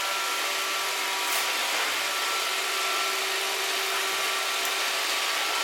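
Robot vacuum cleaner running: a steady motor whine over an even rushing hiss.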